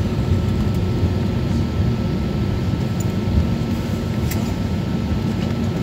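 Airliner cabin noise while taxiing: the jet engines at low thrust and the cabin air make a steady low rumble with a thin constant high tone. Two faint ticks come about three and four seconds in.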